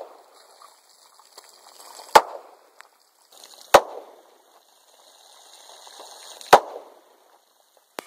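Three 9mm pistol shots, spaced about one and a half to three seconds apart, each followed by a short echo.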